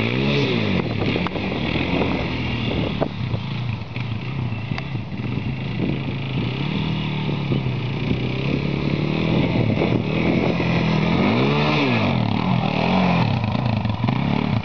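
2006 Arctic Cat DVX 400 quad's single-cylinder four-stroke engine running as it spins on grass. It revs up and drops back at the start, then again several times about twelve seconds in.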